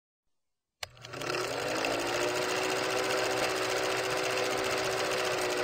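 Film projector clatter sound effect: a click about a second in, then a steady, rapid mechanical rattle over a motor hum.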